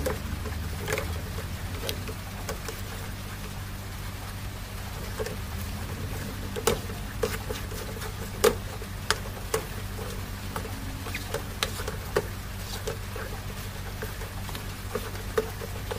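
Wooden spatula scraping and knocking against an aluminium wok while a thick, heavy grated-cassava mixture is stirred, giving irregular sharp taps with the loudest about halfway through. A steady low hum runs underneath.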